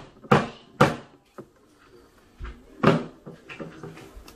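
A series of sharp knocks: two loud ones in the first second, a louder one about three seconds in, and a few lighter taps between.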